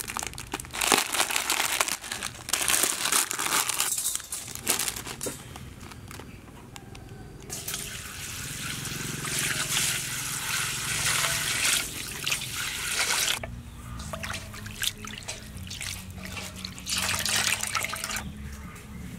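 A crinkling plastic bag of glass noodles being untied and opened, then a steady pour of water into a stainless steel bowl over the noodles for about six seconds. Near the end, water streams back into the bowl as soaked noodles are lifted and squeezed.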